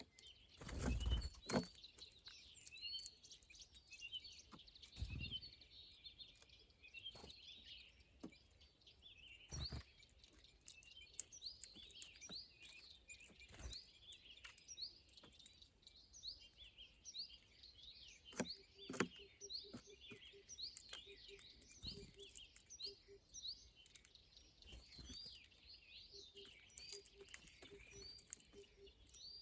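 Many small birds chirping at once in a steady, busy chatter of short high notes, with scattered sharp knocks and taps among them.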